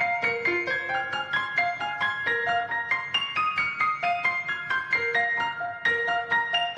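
Background music: a light piano-like keyboard melody of quick, evenly spaced notes, about four a second, with a brief gap about six seconds in.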